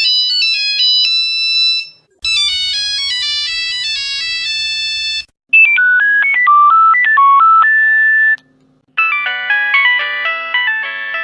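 Nokia mobile phone ringtones: several short electronic melodies, each a different tune, played one after another with brief gaps between them, about four in all.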